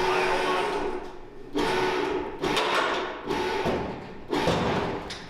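A power tool, such as a driver backing out a screw, runs in about five short bursts. Each starts suddenly with a whirring tone and fades as it spins down.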